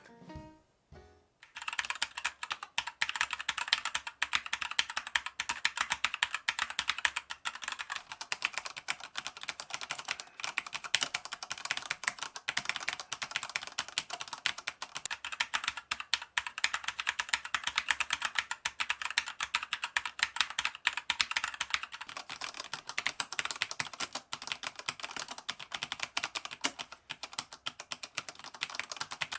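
Keychron K4 mechanical keyboard with brown switches being typed on continuously and fast, a dense stream of key clacks starting about a second and a half in.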